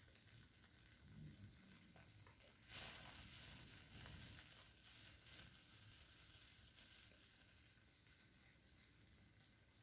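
Faint, fizzing crackle of soapy cleaning suds being worked with a wet sponge, with a louder squish about three seconds in.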